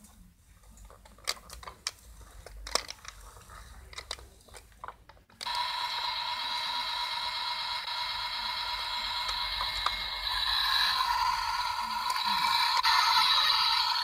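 Light plastic clicks and knocks from the toy car being handled. About five seconds in, the toy's electronic sound effect starts suddenly from its built-in speaker and plays on steadily, thin and high with little bass.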